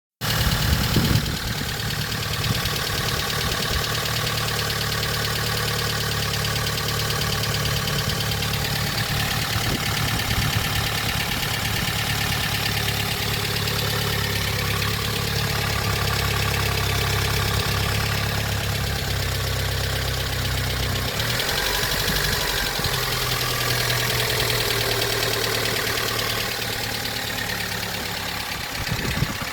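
Honda K24A4 2.4-litre four-cylinder engine idling steadily, with engine noise that the owner finds louder since a valve adjustment. The idle note shifts about 21 seconds in.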